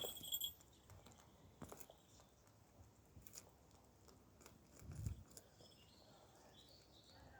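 A bird of prey feeding: faint, scattered clicks and crunches of its beak tearing and biting meat, with a soft thump about five seconds in.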